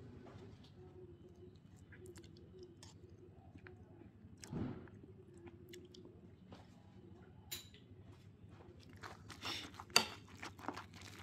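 Faint steady hum with a few scattered clicks and a soft thump about halfway. Near the end a metal utensil starts stirring thick mashed potatoes in a ceramic bowl: soft squishing with quick clicks and scrapes of metal against the bowl.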